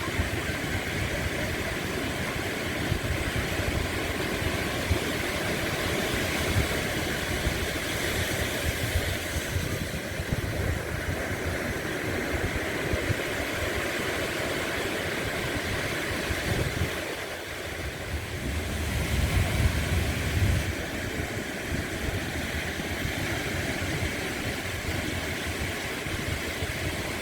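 Ocean surf washing on the shore: a steady rush with a low rumble underneath. It eases briefly about two-thirds of the way through, then builds again.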